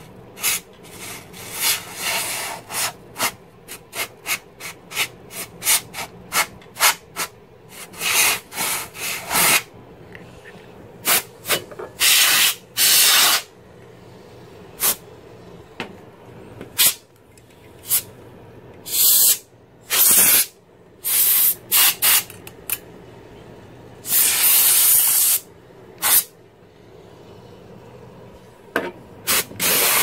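Canned compressed-air duster blown through its straw nozzle into a desktop PC case: a run of quick hissing puffs, then several longer blasts of a second or so, spaced out in the second half.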